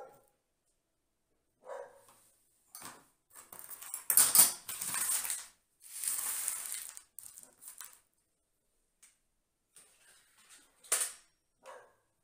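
Loose potting soil scraped and spread by hand across a tray, rustling in a few long stretches in the middle. Between them a dog barks briefly a few times.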